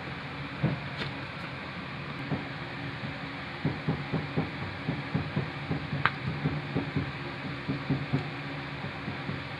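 Homemade transistor amplifier playing music from a phone through a loudspeaker: uneven low bass thumps over a steady hiss and hum, getting busier a few seconds in, with a couple of sharp clicks.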